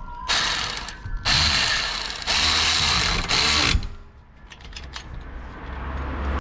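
Pneumatic hand tool, such as an air ratchet or impact wrench, run in four short back-to-back bursts, then a fainter hiss with a few clicks that slowly grows louder.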